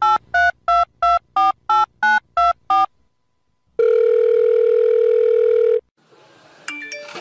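Telephone dialling sound: about ten quick keypad beeps, each a different pair of notes, as a number is dialled. Then comes one steady ringback tone about two seconds long, the call ringing through.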